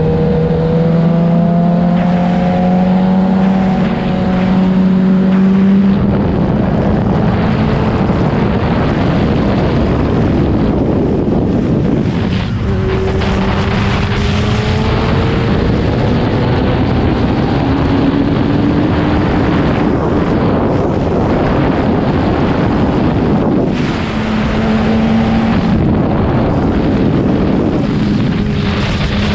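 Superbike engine running hard under a rider through a series of bends, its note climbing and dropping as it accelerates and eases off. Loud wind rush over the microphone, heaviest through the middle stretch.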